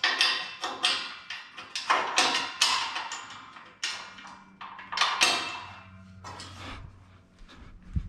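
Metal scaffolding frames and parts clanking and knocking together as they are handled and fitted, a string of sharp, irregular clanks with short ringing tails, thinning out after about five seconds.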